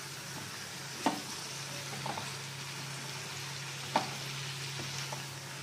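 Kakdi (long cucumber) pieces frying gently in spiced oil over a low flame, stirred with a slotted spatula, over a steady low hum. The spatula knocks sharply against the pan twice, about a second in and again near four seconds, with a few lighter scrapes between.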